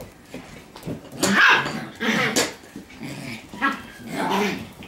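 Shiba Inu puppies play-fighting, growling and yapping at each other in several short bouts, loudest about a second and a half in.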